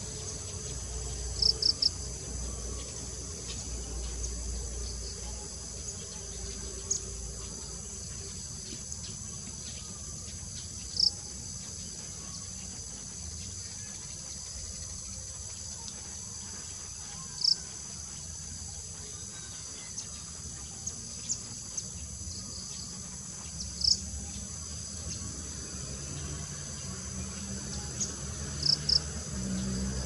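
Steady high-pitched drone of insects, with short high chirps every few seconds, once in a quick run of three and once as a pair.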